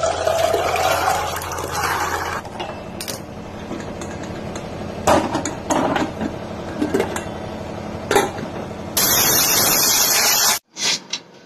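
Soaked chickpeas and water pouring into a stainless-steel pressure cooker, then several sharp metal knocks and clinks of the pot and lid. About nine seconds in, a loud, steady hiss of steam venting from the pressure cooker's weight valve sets in and cuts off suddenly a second and a half later.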